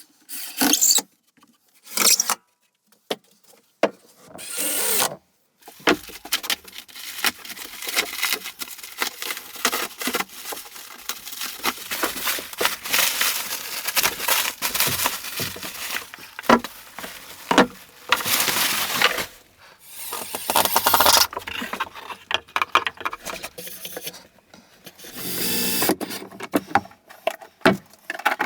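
Hands-on work with tools and wood: irregular knocks and clicks mixed with stretches of scraping and rasping.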